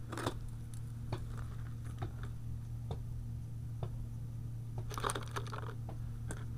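Plastic bag rustling and crinkling inside a metal bucket as a hand handles it, with scattered small clicks and taps and a louder rustle about five seconds in, over a steady low hum.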